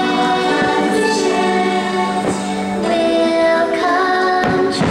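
Fireworks show soundtrack: music with a choir singing, held chords, broken by a few sharp firework bangs, two of them close together near the end.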